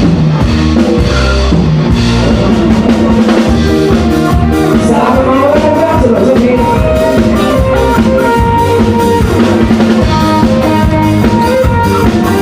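Mor lam band music played loud: a drum kit with bass drum and rimshots keeps a steady beat under a gliding melodic line.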